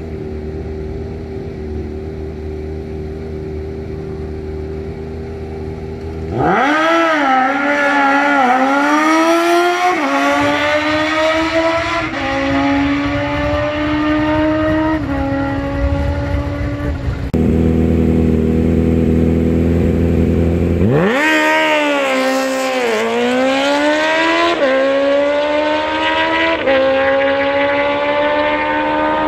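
Drag-racing sport bike's inline-four engine running steadily at the start line, then launching about six seconds in, its pitch climbing and dropping back at each upshift. After a cut it runs steadily at the line again and makes a second launch about 21 seconds in, climbing through its gears the same way.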